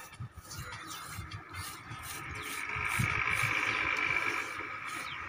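Hand tool scraping and grooving wet cement mortar in short, repeated strokes. A steady high-pitched tone swells up about two seconds in and eases off near the end.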